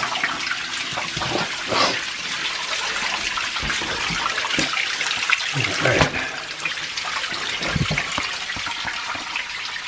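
Small waterfall splashing steadily over rocks, with a few sharp knocks.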